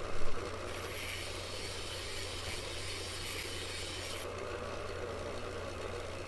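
Bench grinder running with a steady hum while a high-speed steel lathe bit is held lightly against the side of the stone, giving a high grinding hiss from about a second in until about four seconds in, when the bit is lifted off. A short knock just at the start.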